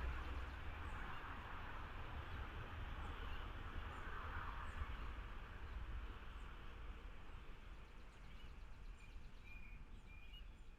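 Faint outdoor background noise, a steady low rumble and hiss slowly fading, with a few short bird chirps that are clearest near the end.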